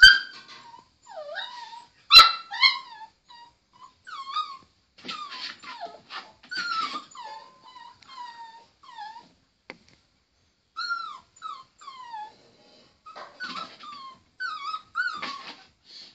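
Six-week-old Pomeranian puppy whimpering and yipping: a string of short, high whines that rise and fall, in bursts with brief pauses. A sharp yelp at the start and another about two seconds in are the loudest sounds.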